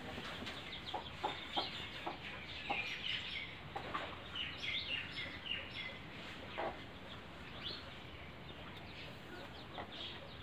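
Chickens clucking, with short high chirps coming in quick clusters, busiest in the first half.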